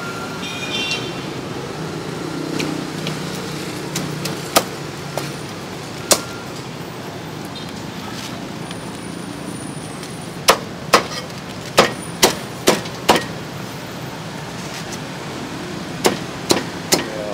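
Meat cleaver chopping roasted duck on a thick round wooden chopping block: sharp knocks, a few single ones early, then a quick run of about six chops, roughly two a second, and another run near the end.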